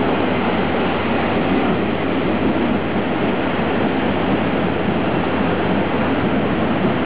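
Chu-Kuang Express passenger train rolling past on the next track: a loud, steady noise of coach wheels running over the rails.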